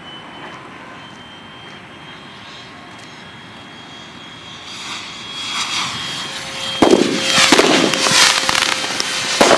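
Radio-controlled Mirage 2000 model jet flying with a steady high whine; about five seconds in a rushing hiss builds, and from about seven seconds loud cracks and crackling like fireworks follow: the model's missile launch.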